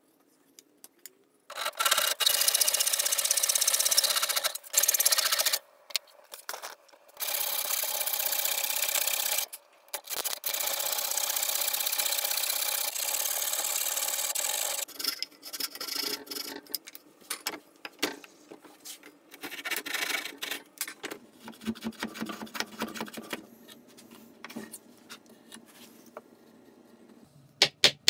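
Hand backsaw cutting oak for a tenon, in three long runs of steady sawing. After these come quieter scattered scraping and ticking, and a few sharp knocks right at the end.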